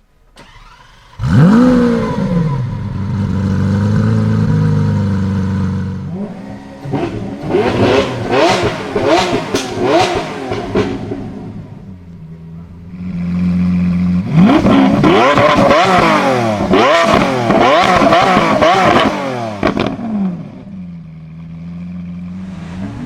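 A supercar engine starts about a second in with a rising and falling flare, then idles. It is revved hard in quick repeated blips in two spells, settling back to idle between and after.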